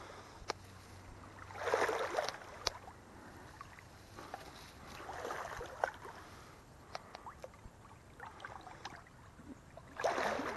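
Legs wading through a shallow creek, the water sloshing in surges a few seconds apart, with scattered small clicks in between.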